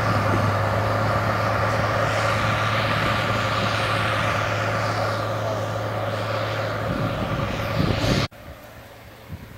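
Large tractor's diesel engine running steadily under load while pulling a laser plane scraper through dry soil, close by. The engine hum fades as the tractor passes. A little after eight seconds the sound cuts off abruptly to faint wind.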